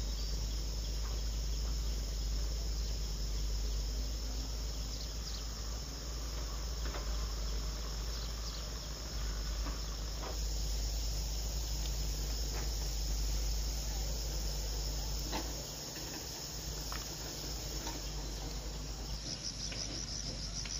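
Insects chirring in a steady high trill, which turns into a fast pulsing chirp near the end, over a low rumble with a few faint scattered knocks.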